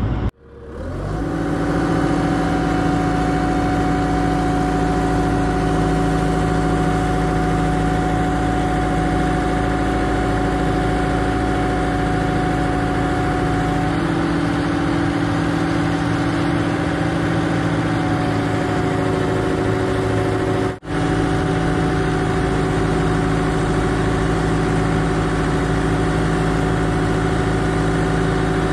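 Excavator's diesel engine running at a steady speed, a continuous hum made of several steady tones. The sound cuts out for a moment about 21 seconds in, then carries on unchanged.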